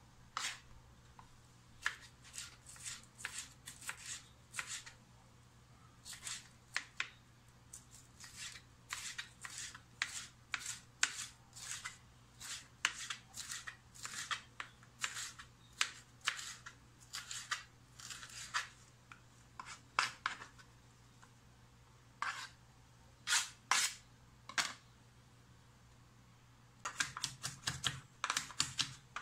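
Kitchen knife cutting through bell pepper onto a plastic cutting board: sharp, irregular clicks of the blade hitting the board, one to three a second with short pauses. Near the end it turns into a quick run of rapid chopping as garlic is minced.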